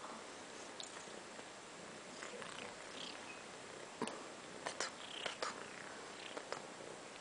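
Persian cat purring softly and steadily, with a few light clicks about four to five and a half seconds in.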